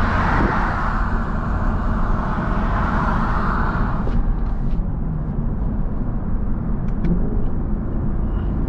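Lexus LC500's naturally aspirated 5.0-litre V8 running at highway speed, with road and wind noise; the loud, dense part of the sound drops off sharply about four seconds in, leaving a lower, steady rumble.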